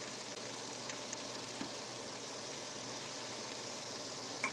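Bell peppers and onions sizzling steadily in a frying pan, with a few light clicks of a spatula against the pan, the sharpest near the end.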